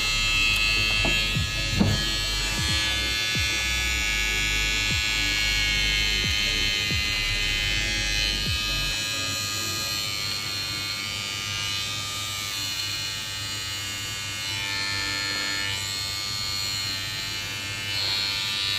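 Sonar HP-300 rechargeable trimmer running with a steady motor whine while trimming mustache hair. Short scraping clicks are scattered through the first half, and a low hum stops about halfway through.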